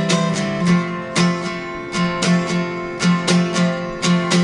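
Unamplified acoustic guitar strumming chords in a steady rhythm, each stroke ringing on into the next.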